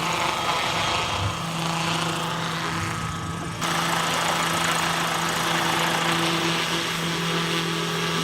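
RC model helicopter's motor and rotor running at a steady pitch, with an even humming drone over rotor wash noise; the sound steps up abruptly in level about three and a half seconds in.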